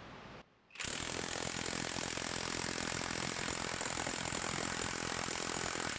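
Hercules brushless half-inch high-torque impact wrench hammering continuously in a torque-test rig: a fast, steady rattle of impacts that starts about a second in and runs for about five seconds.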